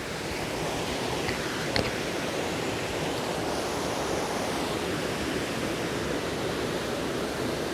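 Creek water rushing steadily down a steep rock slide cascade into a pool, with one small click about two seconds in.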